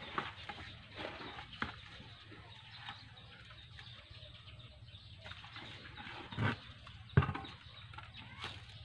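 Scattered knocks and scrapes of a mason's trowel working wet concrete, with two heavier thuds in the second half.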